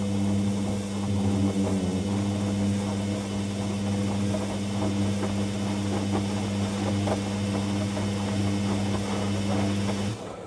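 Hoover WDYNS654D washer dryer moving water during its rinse: a steady electrical hum over rushing water, which cuts off abruptly about ten seconds in.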